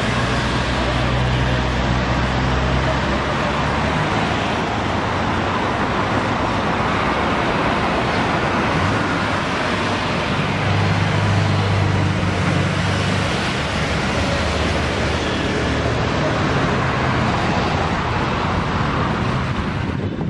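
Street traffic: vehicle engines running close by over a steady wash of road noise. A low engine hum shifts about four seconds in and swells again between roughly ten and thirteen seconds in.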